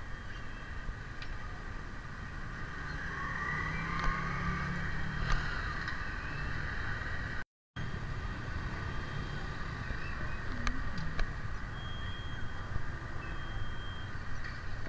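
Busy street ambience of motorbike and car traffic with a steady background din, broken by a brief gap of silence about halfway through.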